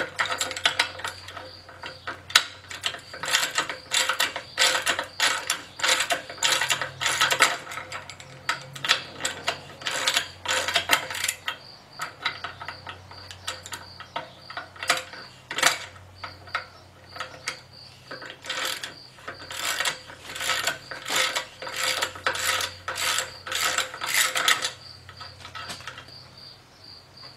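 Ratchet wrench clicking in rapid runs as a split-ring socket unscrews the threaded ball joint split ring from a Dana 30 steering knuckle; the clicking stops near the end.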